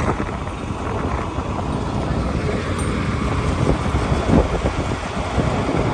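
Tractor running steadily as it tows a hay wagon over a field, with wind buffeting the microphone and a few short knocks from the wagon.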